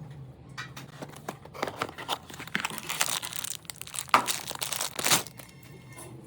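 Rustling, crinkling and clicking handling noises, densest and loudest from about two to five seconds in, over a faint steady low hum.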